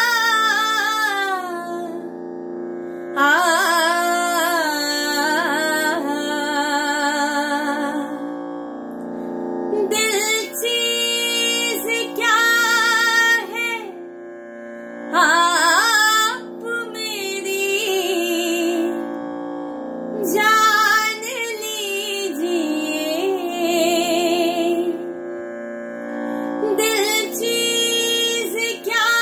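A woman singing wordless Hindustani classical vocal phrases, with held notes and fast wavering runs, in several phrases broken by short pauses. A steady drone sounds underneath throughout.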